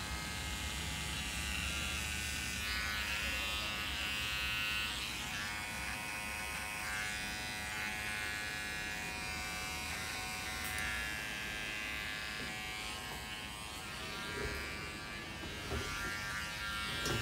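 Cordless electric hair trimmer buzzing steadily as it cleans up the hairline at the nape and around the ear.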